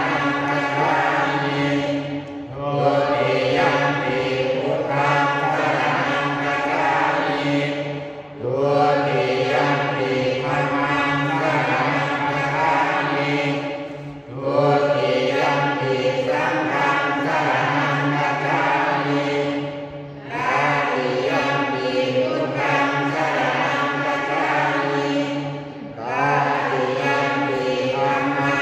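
A man leading Thai prayer chanting into a microphone, reciting on a steady held tone in long phrases of about six seconds with short pauses between them.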